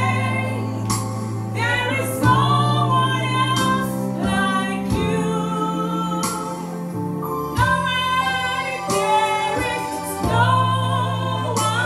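Female singers performing a gospel worship song through microphones, with held chords from an electronic keyboard underneath.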